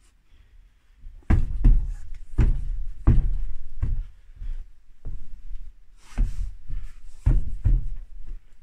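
A run of heavy, irregular thuds and knocks, about eight impacts spread over several seconds.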